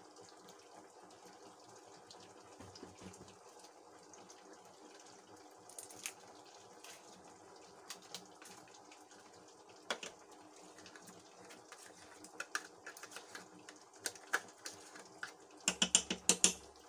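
Faint steady background hum with scattered small clicks. Near the end comes a quick run of loud clicks and taps as chocolate yogurt is emptied from its plastic cup into a steel saucepan.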